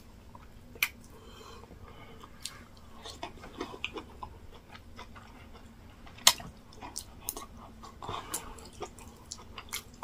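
Eating sounds of yam fufu with egusi soup eaten by hand: wet chewing and lip smacks, with scattered short sharp clicks, the loudest about six seconds in.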